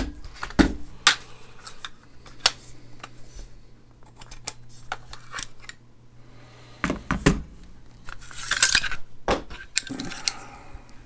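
Metal clicks, knocks and clinks of an AR-style firearm being taken apart, its upper receiver separated from the lower receiver. The knocks come one at a time, and a longer scraping rustle comes about eight and a half seconds in.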